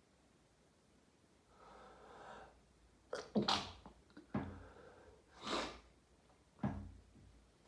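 A man's sneezing fit: a drawn-in breath about a second and a half in, then several sharp sneezes in quick succession, the loudest about three and a half seconds in.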